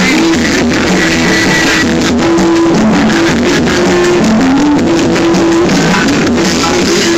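A busker's music, played loud: a melody of held notes stepping up and down over a steady accompaniment.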